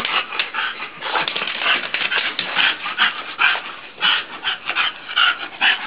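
English bulldog breathing hard and panting in quick, irregular noisy breaths.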